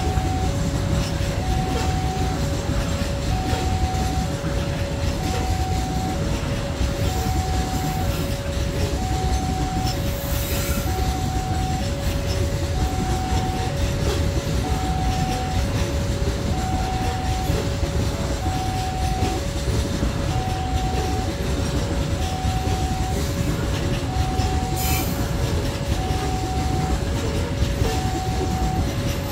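A level-crossing warning alarm sounds a steady two-tone alternation, a lower and a higher tone each lasting under a second, repeating without pause. Under it comes the continuous rumble of the wheels of a long Babaranjang coal train of open gondola wagons rolling past on the rails.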